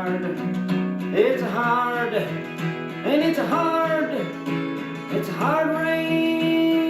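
Folk song with strummed acoustic guitar and a sung voice holding out the repeated 'it's a hard' lines of the refrain.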